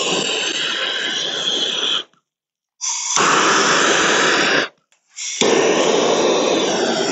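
Handheld propane torch burning with a loud, steady hiss as its flame is played on grease-soaked firewood to light a campfire. It cuts out abruptly twice for under a second, about two seconds in and just before five seconds.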